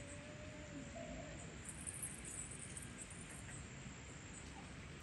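Faint outdoor ambience with distant birds and insects chirping, and a faint, long wavering call that fades out about a second in.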